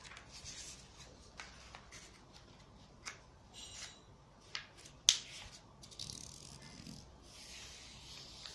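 A sheet of origami paper being handled and folded in half corner to corner: light crackles and taps, a sharp snap about five seconds in, then rustling as the fold is rubbed flat and creased.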